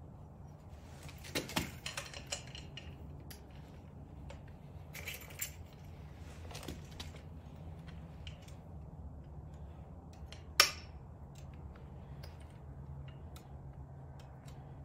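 Scattered metallic clicks and clinks from fitting and locking the twin unicycle's center-bar clamp onto the seat post, with keys jangling, and one sharp loud click about ten and a half seconds in, over a low steady hum.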